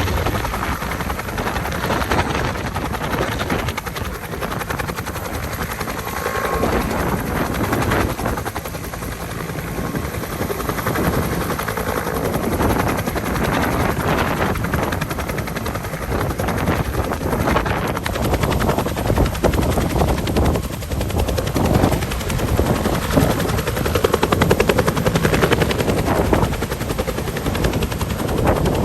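Helicopter rotor chopping steadily, with the level swelling and easing a little and rising somewhat near the end.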